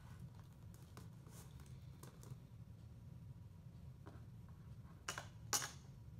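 Quiet small-room tone with a steady low hum, and two light taps close together about five seconds in.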